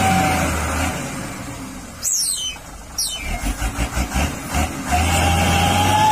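Small electric motor and gearbox of a toy radio-controlled dump truck whining steadily over a low hum, cutting out about a second in and starting again near the end. In the gap come two quick falling whistles and a run of low thumps.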